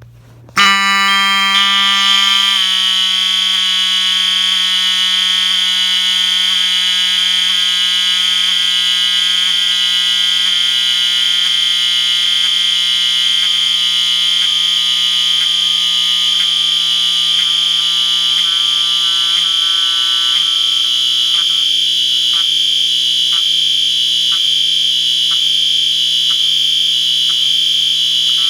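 Three fire alarm horns sounding together, loud and continuous: a Wheelock 34T horn, a System Sensor P2RL horn-strobe on continuous and, barely audible, a Wheelock MT multitone on high-low. They start about half a second in, and from about halfway through the 34T's buzz skips about once a second as the strobes flash, which the owner puts down to the batteries being drained.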